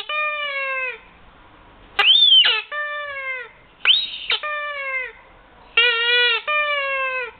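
Rubber squeaky toy squeezed and released about four times, each squeeze giving a pair of whistle squeaks: a short one, then a longer one that falls slightly in pitch.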